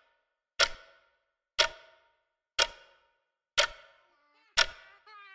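Clock-tick sound effect counting down seconds: five sharp ticks, one a second, each with a short ringing decay. A faint wavering pitched sound comes in near the end.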